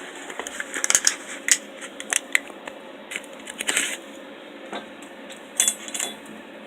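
Light metallic clinks and taps from steel pieces being handled: scattered sharp clicks, a short scrape in the middle and a quick cluster near the end.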